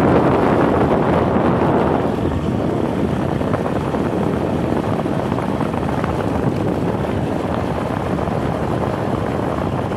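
Steady rushing wind noise buffeting the microphone while riding along at speed, a little louder for the first two seconds.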